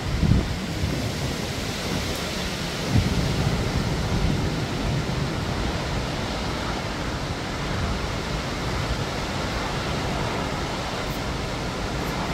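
Hurricane wind rushing steadily through the trees, with low rumbling gusts near the start and again about three seconds in.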